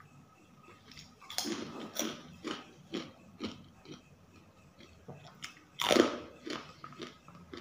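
Close-miked chewing of crunchy food: a run of crisp crunching bites about twice a second, then the loudest crunch about six seconds in.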